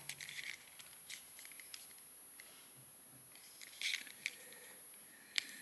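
Plastic action figure being handled and posed: faint clicks and rubbing from its leg and hip joints, with a small cluster of sharper clicks about four seconds in.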